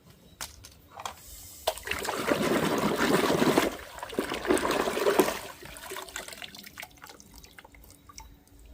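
Water splashing and trickling, with small clicks and knocks, in two spells of about two seconds and one second, then only faint ticks.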